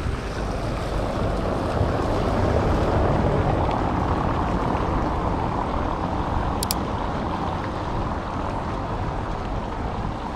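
Steady city-street ambience with wind buffeting the camera microphone: an even rumble and hiss, with two faint clicks about two-thirds of the way through.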